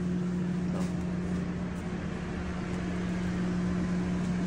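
Steady machine hum holding one constant pitch, with a low rumble underneath.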